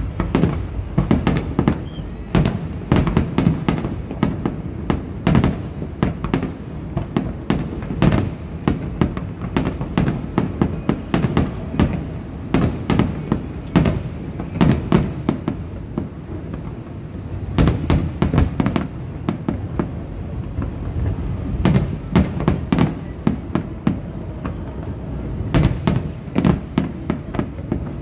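Aerial firework shells bursting in rapid barrages: many sharp bangs and cracks in quick succession, with short pauses between the volleys.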